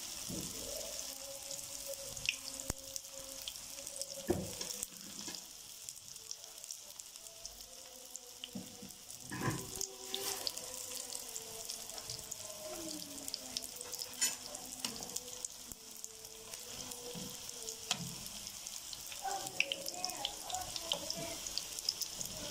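Nut-filled qatayef frying in hot oil in a pan: a steady sizzle with scattered small crackles and pops.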